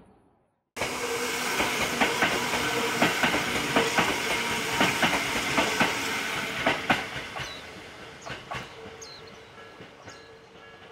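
A Hakone Tozan Railway electric train passing close by, its wheels clattering over the rail joints, with a steady tone running under the clatter. The sound starts suddenly just under a second in, and the clatter thins and fades after about seven seconds as the train moves away.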